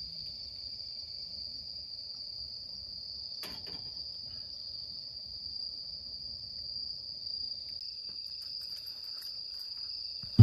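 Insects trilling steadily with a continuous high-pitched chirring, and a single click about three and a half seconds in.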